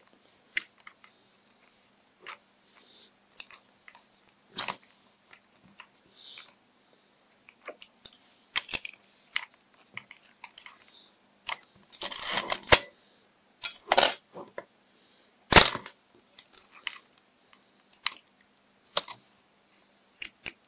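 35mm film leader and fingertips handled against the metal film path of a Praktica LTL 3 camera: irregular small clicks and crinkles, with a denser crackling stretch about twelve seconds in and a sharp click a few seconds later.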